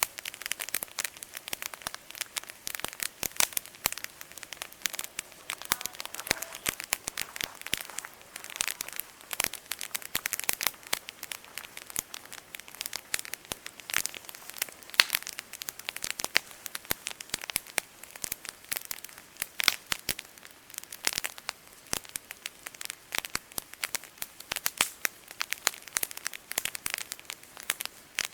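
Wood campfire crackling, with many irregular sharp snaps and pops throughout.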